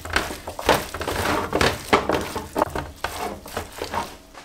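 Gloved hands mixing raw chicken wings in a yogurt and spice marinade in a metal baking tray: a quick, uneven run of short slaps, fading near the end.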